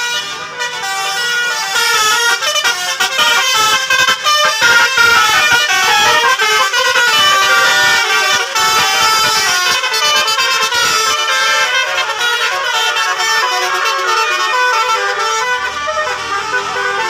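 Bus's multi-tone basuri 'telolet' horn playing a continuous tune, several horn notes sounding at once and stepping up and down in quick succession, loud and sustained.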